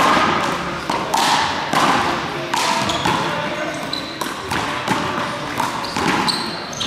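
A one-wall handball rally: sharp smacks of the small rubber ball struck by gloved hands, hitting the wall and bouncing off the floor, several times at uneven intervals, each echoing around the sports hall.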